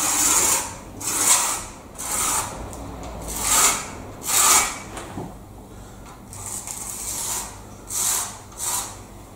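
Pencil scratching along the foot of a door frame in a run of short strokes, about eight, marking where the door sits, with a pause about halfway through.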